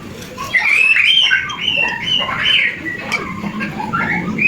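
Birds chirping, many short whistled calls overlapping.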